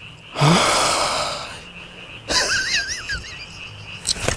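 A man blows out a loud, exasperated breath about half a second in, a long breathy sigh that starts with a short rising groan. A second, shorter breathy burst follows with a wavering whistle in it, and a couple of sharp clicks come near the end.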